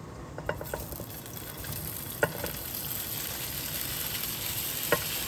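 Chunks of turkey smoked sausage dropped into a hot nonstick frying pan to brown, sizzling louder as more go in. There are a few sharp knocks as pieces land in the pan.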